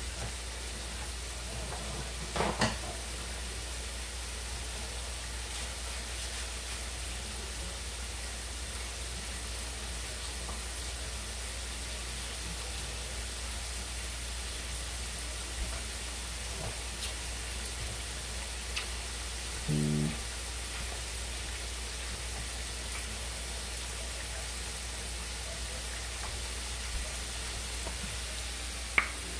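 Food frying in hot oil with a steady sizzle. There is a short clatter about two seconds in, a brief low tone around twenty seconds in, and a sharp click near the end.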